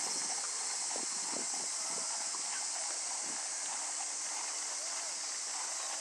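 Hoofbeats of a Thoroughbred horse trotting and cantering on the sand of a riding arena: soft, muffled thuds, over a steady high hiss.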